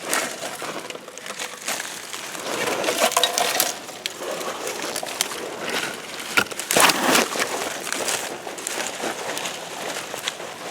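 Digging and rummaging by hand through dumped junk and dirt: irregular scraping, crunching and rustling with small clinks, loudest about seven seconds in.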